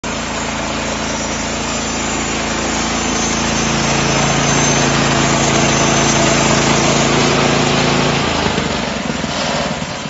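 Petrol engine of a portable band sawmill running steadily while the bandsaw head is pushed through a log. About eight seconds in, the steady engine note breaks off and a rougher sound follows.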